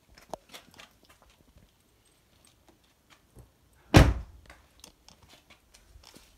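A car door shut with one loud thunk about four seconds in, with light clicks and rustles before and after it.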